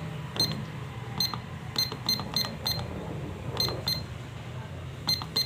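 Keypad of a Nobel DY-F1 electronic price-computing scale beeping as its keys are pressed to enter a code: about ten short, high beeps in irregular runs.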